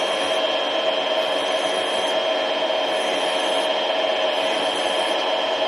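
Small bench-top mini lathe running steadily with a motor whine while a hand file is worked against the spinning steel recoil spring guide rod, turning it down to fit. A high hiss comes and goes about every second and a half.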